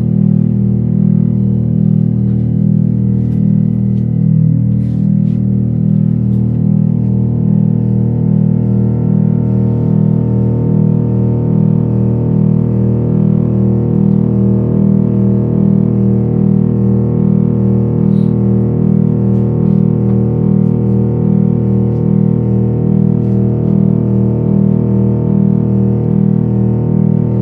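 Modular synthesizer electronics playing a loud, dense low drone that pulses in an even, rapid throb, with a cluster of held tones stacked above it.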